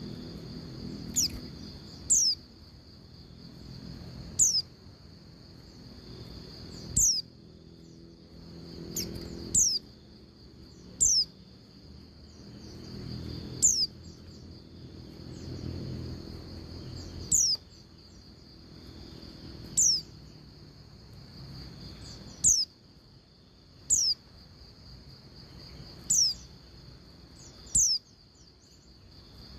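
Female white-eye (pleci) calling: short, high whistled notes that slide downward, given singly or in quick pairs every couple of seconds. A steady high hum runs underneath.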